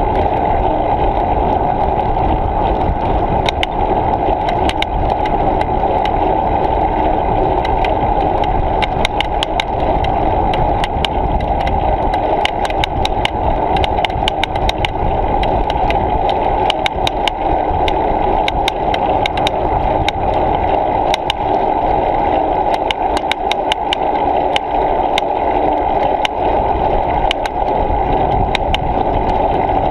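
Steady riding noise picked up by a bicycle-mounted action camera: wind and tyre rumble with frequent small clicks and rattles.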